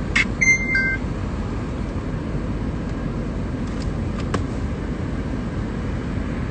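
Steady low rumble of a car heard from inside the cabin. Near the start there is a click, then a short electronic beep that steps down from a higher tone to a lower one.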